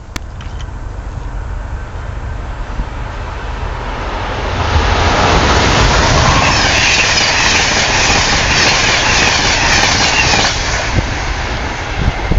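Train passing at speed. A low rumble swells about four and a half seconds in into a loud rush of wheel and air noise, which holds for about six seconds and then eases off.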